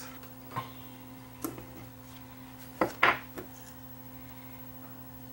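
A few light clicks and taps from small metal motor parts, the capstan motor's can and end cap, being picked up and fitted together by hand. The loudest pair of clicks comes about three seconds in, over a faint steady hum.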